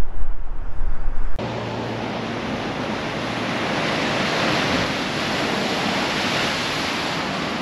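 Ocean surf breaking and washing over shoreline rocks, a steady roar of crashing waves. It is preceded by a low rumble that cuts off suddenly about a second and a half in.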